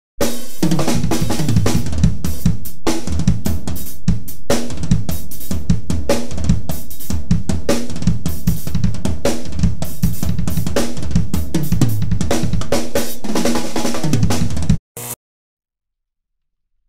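Drum kit played busily, a rapid run of drum and cymbal hits with no melody instrument standing out. It stops abruptly about fifteen seconds in with one short final hit, then silence.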